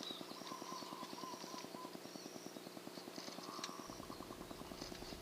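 Faint evening wildlife ambience: a fast, even pulsing, with thin high calls and chirps over it.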